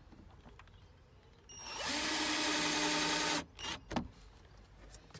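Cordless drill driving a screw through a curtain rail into plastic interior trim: one steady run of about two seconds starting about a second and a half in, then two short bursts.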